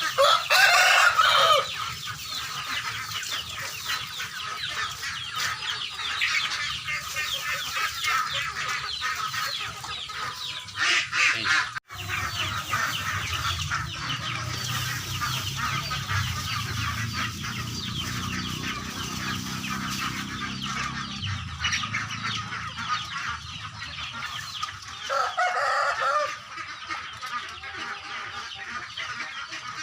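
A flock of chickens clucking and calling continuously, with a few louder calls standing out near the start, about eleven seconds in, and near the end.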